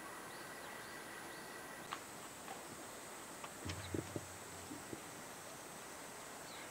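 Soft footfalls and knocks of a western gorilla knuckle-walking on a concrete floor, a short cluster of them about four seconds in, over a faint steady background.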